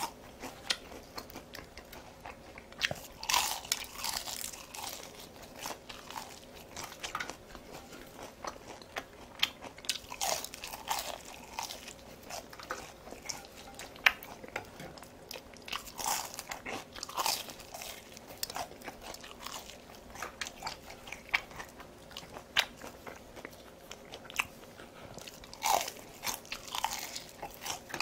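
Close-up crunching and chewing of batter-fried shishito peppers, crisp bites coming in clusters every few seconds between quieter chewing.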